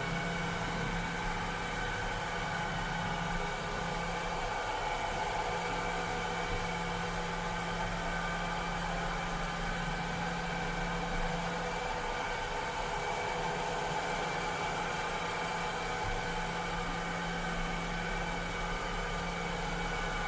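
Cleaning robot running steadily: an even motor whir with several steady high whining tones over a hiss, and a low hum underneath that drops out briefly about twelve seconds in.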